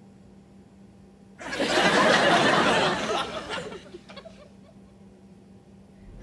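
Sitcom audience laughter (laugh track) swelling in about a second and a half in and fading away by the middle, leaving quiet room tone.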